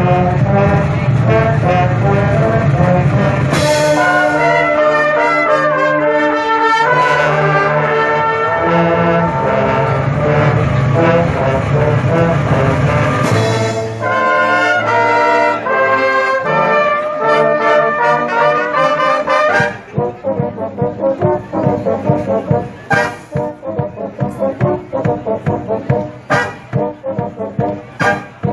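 Marching band brass (trombones and trumpets) playing loud held chords; about twenty seconds in the music breaks into short, clipped notes punctuated by sharp drum hits.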